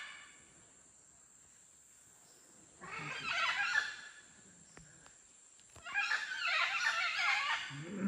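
Monkeys calling in the forest canopy: two bouts of loud, wavering high calls, the first about three seconds in and lasting about a second, the second starting about six seconds in and running about two seconds.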